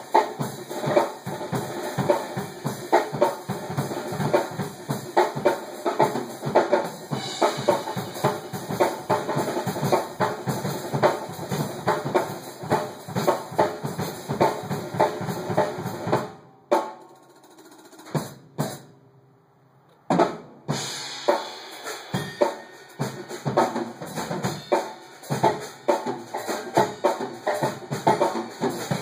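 Two drum kits played live together, with fast, dense bass drum, snare and cymbal hits. Just past the halfway point the playing breaks off for about four seconds, leaving a couple of lone hits, then comes back in.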